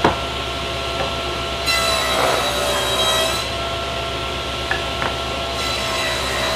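Woodworking power saw or router running with a steady whine, cutting wood; its sound turns harsher twice as the stock is fed through, machining the glued-up cherry panel.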